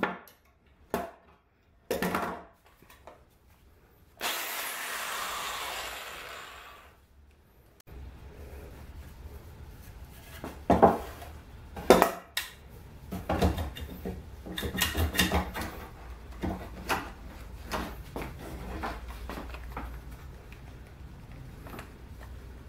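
Wooden parts being handled on a wooden workbench: irregular knocks and clatters of plywood and timber pieces set down and moved. A steady hiss lasts about three seconds, starting some four seconds in.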